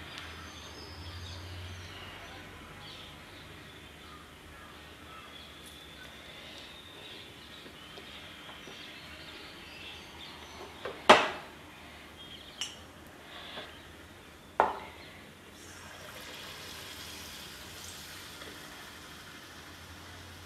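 A few sharp clicks and knocks of a utensil against a steel kadai, the loudest about halfway through. From about three quarters of the way in, a steady sizzling hiss as Mysore bonda batter deep-fries in hot oil.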